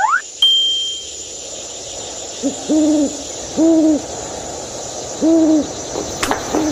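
Owl hooting: a short hoot, then about four drawn-out low hoots, over a steady hiss of night ambience.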